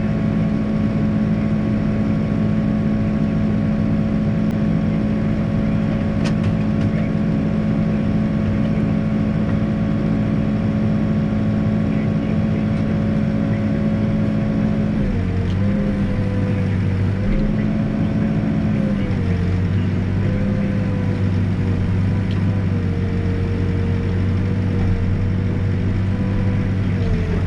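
Backhoe's diesel engine running steadily at working speed; about halfway through, its pitch drops a little and wavers up and down.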